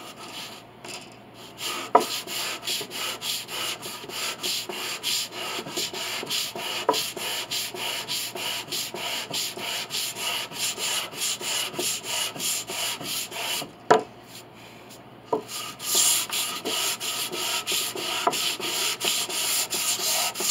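Quick, even back-and-forth strokes of a hand tool shaving and rubbing down a wooden piano pinblock to level it, about three strokes a second. Sharp knocks come about two seconds in and again near the middle, where the strokes pause briefly before starting again.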